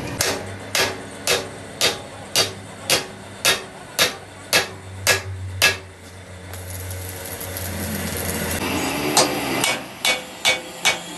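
Hand hammer striking a steel truck axle: about eleven evenly spaced blows, a little under two a second, then a pause of about three seconds and a quicker run of blows near the end.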